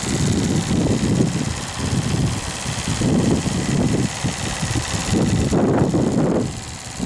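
Small TVR1a twin-cylinder vertical steam engine running on steam from a model Yarrow boiler: an uneven low clatter under a faint steady high hiss.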